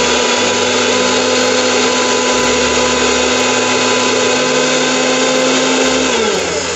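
Mixer grinder with a stainless-steel jar running steadily at full speed, blending a thin gram-flour and yogurt batter, with a steady motor whine. About six seconds in it is switched off and the whine falls in pitch as the motor runs down.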